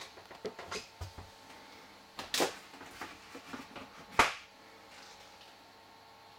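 Scattered light knocks and clicks, two sharper ones about two and a half and four seconds in, then quiet room tone.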